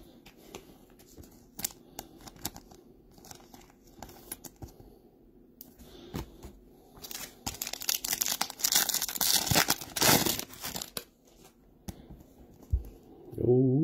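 Foil wrapper of a Topps Chrome trading-card pack crinkling and being torn open, loudest for a few seconds in the second half, with scattered small clicks of cards and wrappers being handled before it.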